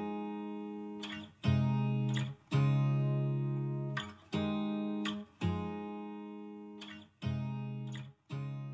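Background music: guitar chords strummed about once a second, each left to ring out and fade.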